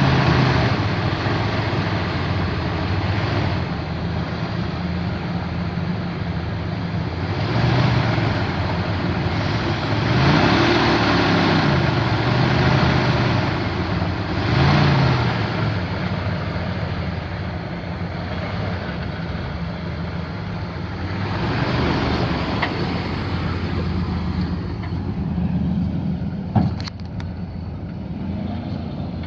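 A 1999 Dodge Ram 1500's 5.9-litre V8 gas engine running, revved up and back down several times. Near the end there is one sharp knock.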